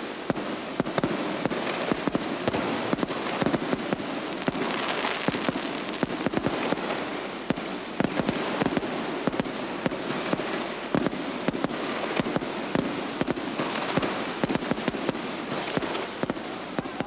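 Fireworks going off in a continuous, irregular barrage of sharp bangs and crackles, several per second.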